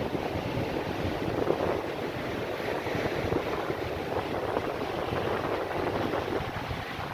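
Rough sea surf washing and breaking, with strong wind rumbling on the microphone.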